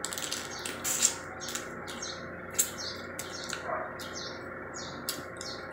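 Close-up eating sounds: irregular wet smacks and clicks of chewing air-fried shrimp, with the shells crackling as they are peeled.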